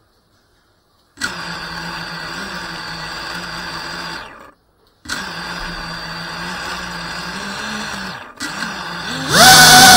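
Tiny whoop FPV drone's small brushless motors start up about a second in and spin with a steady idle whine. They stop briefly midway, start again, and then throttle up sharply near the end, much louder and rising in pitch, as the drone lifts off.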